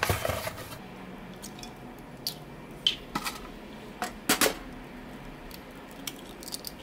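Liquid egg whites sizzling steadily in a nonstick frying pan, with sharp clicks of eggshells being cracked and opened over the pan, the loudest about four seconds in and a few more near the end.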